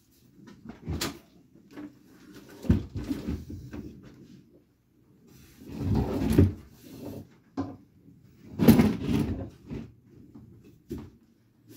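Table saw parts and packaging being handled during unboxing: a scattered series of knocks and thumps with rustling between them, the loudest about three-quarters of the way through.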